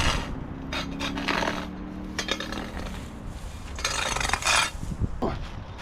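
Debris being handled and shifted by hand: several short bursts of rustling and scraping.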